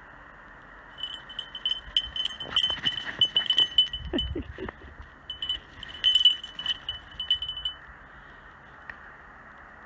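A small bell on a running dog's collar jingling in quick bursts, going quiet for a moment halfway through and again near the end. A brief low sound comes about four seconds in.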